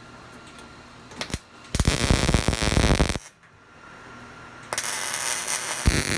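Arc welding crackling in two bursts of about a second and a half each, tacking steel hinges onto a sheet-metal hood.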